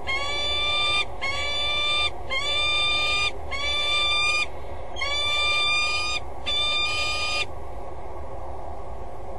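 Peregrine falcon giving a series of long, drawn-out calls, about one a second, that slide up slightly at the start of each. The calls stop about seven and a half seconds in.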